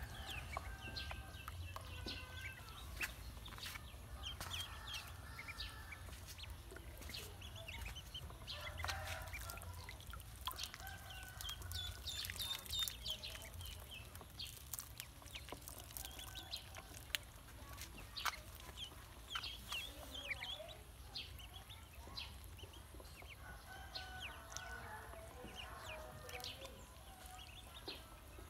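Fowl clucking and peeping on and off, over ducklings splashing and dabbling in a shallow basin of water. There are many short clicks and a steady low rumble underneath.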